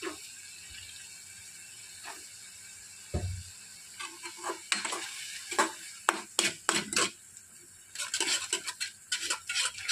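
Perforated steel skimmer stirring masala in a steel kadai, clinking and scraping metal on metal over and over from about four seconds in, densest near the end. Before that, a steady sizzle of the masala in the pan with one dull knock.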